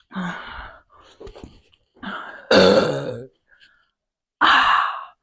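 A woman burping, a run of separate belches, the loudest and longest about halfway through.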